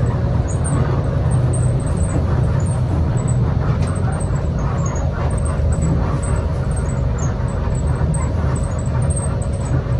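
Hino R260 coach under way, heard from inside the cabin: a steady low rumble of its diesel engine and road noise.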